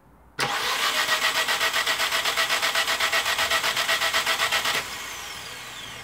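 Starter motor cranking a three-cylinder petrol engine at a steady pulsing rate of about seven beats a second. The engine does not fire, because its fuel injectors are disconnected. The cranking stops suddenly about five seconds in and is followed by a fainter falling whine as it spins down.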